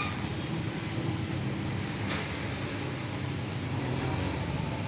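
High-voltage copper wire joint machine running with its cooling fan on, a steady hum and whir, now working after its blown fuse was replaced. A faint brief click about two seconds in.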